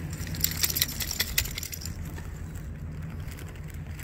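A quick flurry of light clicking and jingling for about a second and a half, starting shortly after the beginning, over a steady low rumble.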